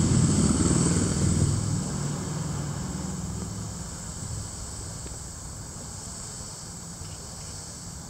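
A passing engine's low hum, loudest at the start and fading away over the next few seconds, over a steady high-pitched hiss.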